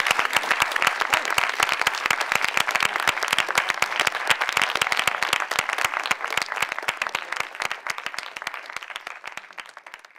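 An audience applauding, a dense clatter of many hands clapping that gradually dies away toward the end.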